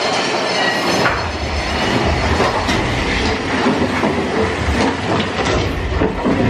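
Big Thunder Mountain Railroad mine-train roller coaster clattering and clacking as it climbs a lift hill in a tunnel, with a low rumble setting in about a second in.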